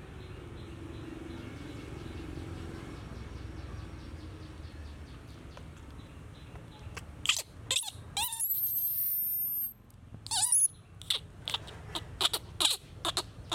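Baby monkey giving a long, high-pitched wavering squeal about eight seconds in and a shorter one a second later, among sharp clicks and taps of handling; before that only a low steady hum.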